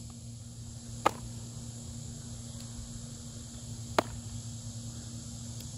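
A baseball caught twice in a game of catch: two sharp pops about a second in and about four seconds in. The second is the ball smacking into a brand-new, barely broken-in Rawlings Rev1X leather glove.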